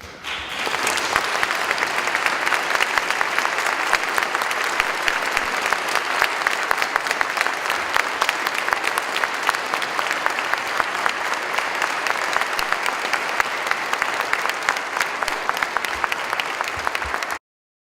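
Audience applauding steadily in a church, a dense clapping that cuts off abruptly near the end.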